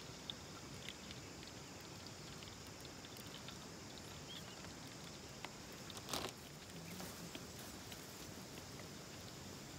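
Quiet outdoor ambience with a steady high insect drone, light clicks and taps of camp cookware and containers being handled, and a brief clatter about six seconds in.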